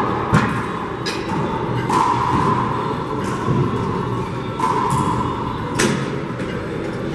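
Rubber handball struck by hand and smacking off the walls of a four-wall court in a rally: several sharp, echoing smacks, the loudest right at the start and another strong one near the end.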